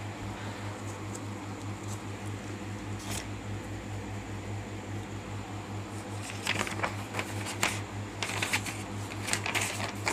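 Notebook paper rustling and crackling in a run of short strokes as a page is handled and turned, starting about six seconds in, over a steady low hum.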